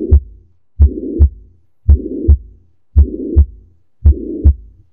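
Heart sounds heard through a stethoscope over the mitral area, about one beat a second: each beat is a first and a second heart sound with a higher-pitched murmur filling the gap between them. This is the systolic murmur of mitral regurgitation, and it does not muffle the second sound.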